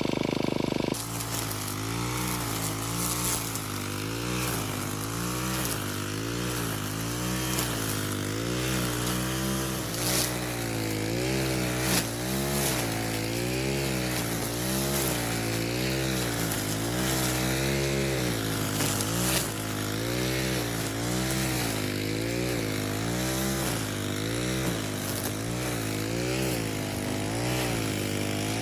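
Small electric motor of a homemade RC grass cutter running with a buzzing whine, its pitch wavering up and down about once a second as the spinning blade works through grass.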